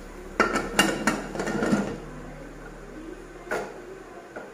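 Pressure cooker lid being put on and closed: a few sharp metal clanks and a short rattle in the first two seconds, then one more knock about three and a half seconds in.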